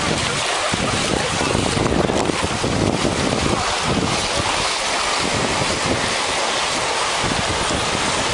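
Wind buffeting the microphone over the steady wash of small waves breaking on a sandy beach, a little louder about two to three seconds in.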